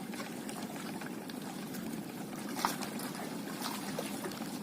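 Sea water lapping and trickling steadily, with a couple of faint knocks about midway.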